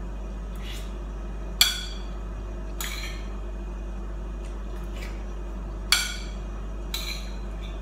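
A spoon clinking against a ceramic plate while someone eats: four sharp clinks spread over several seconds, with a couple of fainter taps between them.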